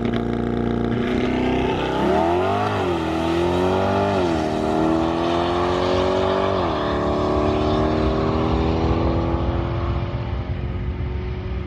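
2020 Chevrolet Corvette C8's 6.2-litre LT2 V8, on its factory catalytic converters, accelerating hard from a drag-strip launch. The engine note climbs and drops back at each upshift, three times in the first seven seconds, then holds a nearly steady note and grows fainter near the end as the car pulls away.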